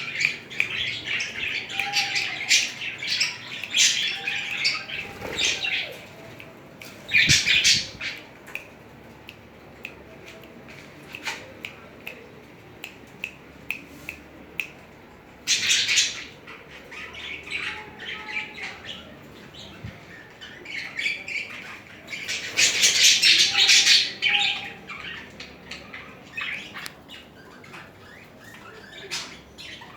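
Budgerigars chattering in courtship, with three loud harsh squawking outbursts about eight, sixteen and twenty-three seconds in. There are quieter chirps and ticks between them, and the chatter is busiest in the first few seconds.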